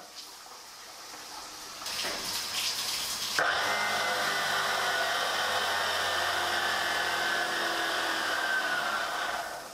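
Six 775 DC motors driving a 3D-printed gearbox and double-volute water pump: after a brief lull the motors start up about two seconds in and jump to full speed about a second later, running with a steady whine that sags slightly in pitch, along with the hiss of the water jet spraying. The motors shut off just before the end.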